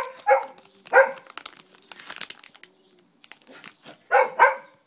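Small dog barking in short, high yips: three in quick succession at the start and two more near the end. Between them there is a brief crinkling rustle.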